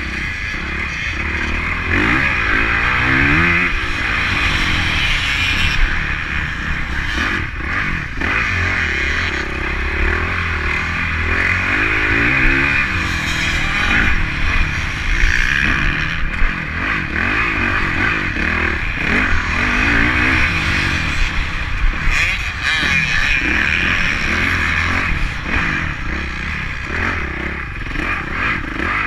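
Honda CRF motocross bike's single-cylinder four-stroke engine revving up and falling back again and again as it is ridden around a dirt track, heard close from a camera mounted on the bike.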